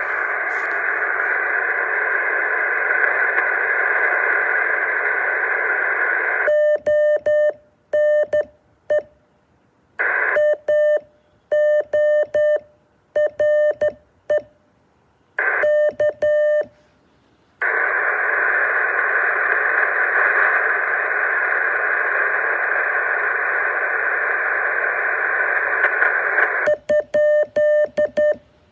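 Radio receiving Morse code: a steady hiss of band noise, then from about six seconds in a single tone keyed on and off in dots and dashes for about ten seconds, with silence between the keyed elements. The hiss returns, and the keyed tone comes back near the end.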